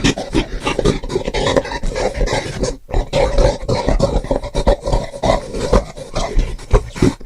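Homemade Bigfoot sound effect: a rapid string of growls and grunts in short, choppy bursts, broken once briefly about three seconds in.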